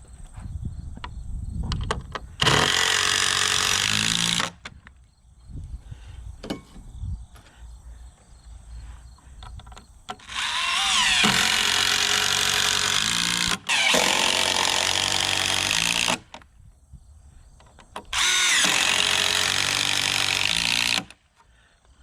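Power drill running in four bursts of two to three seconds each, its motor pitch rising as it spins up, with light knocks of handling between the bursts.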